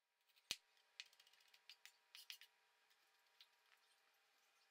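Faint chef's knife taps on a plastic cutting board while a red onion is thinly sliced: one sharper knock about half a second in, then a scattered run of light ticks, over near silence.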